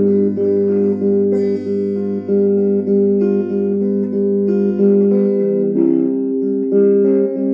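Slow instrumental background music of long-held notes; a low bass note drops out about five seconds in.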